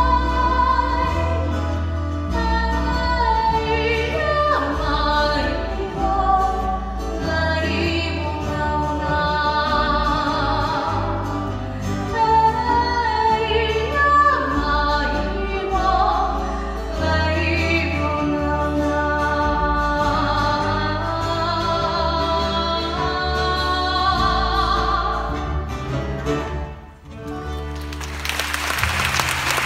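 A woman sings a slow melody into a microphone, backed by acoustic guitars and a bass line. The song ends about 27 seconds in, and the audience starts applauding just after.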